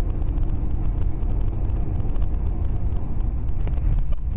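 Steady low rumble of a car driving on a snowy road, heard from inside the cabin: engine and tyre noise.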